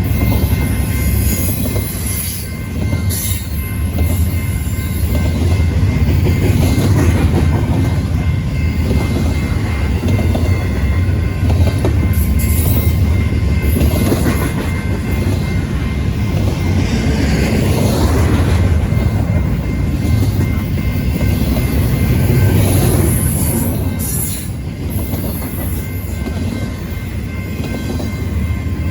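A train rolling past with a steady heavy rumble and wheel noise, and a thin high ringing tone held throughout.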